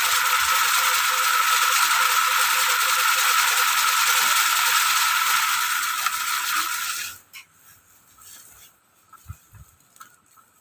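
Raffia-winding machine spinning, a loud steady whirring with a high steady tone as plastic raffia tape is wound onto the roll; it stops suddenly about seven seconds in, leaving a few small clicks.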